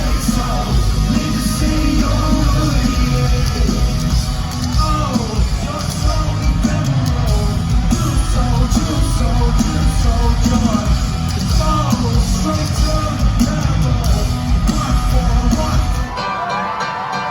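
Live rock band playing loudly, with heavy bass and drums under sung and yelled vocals. The low end drops out for a moment about sixteen seconds in.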